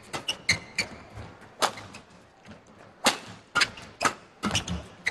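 Badminton rally: a series of sharp cracks of rackets striking the shuttlecock, the loudest about three seconds in, with short squeaks of court shoes between the hits.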